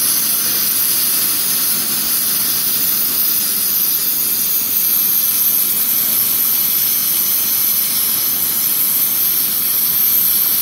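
Oxy-fuel cutting torch cutting through a steel pipe: a loud, steady hiss from the cutting-oxygen jet blowing through the molten steel.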